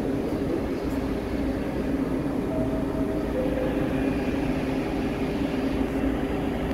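Steady hum from a stationary R62A subway car on the 1 line, standing at the platform, with a couple of brief higher tones around the middle.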